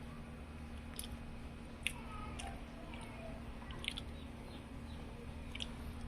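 A person chewing crispy fried tempe, with a few short crunches at irregular intervals over a steady low hum.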